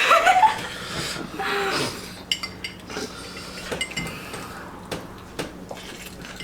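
Eating utensils clinking and tapping against a dish during a meal, in scattered light clicks from about two seconds in. A short rising vocal sound comes right at the start, with another brief one about a second and a half in.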